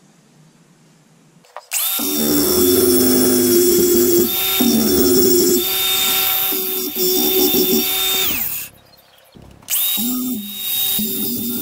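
DeWalt angle grinder grinding a steel tube held in a bench vise, with a steady high whine. It starts about a second and a half in, stops for about a second near two-thirds through, then starts grinding again.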